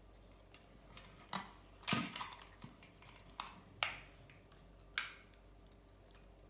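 About five sharp clicks and knocks of small hard objects being handled and set down on a workbench, the loudest a short clatter about two seconds in.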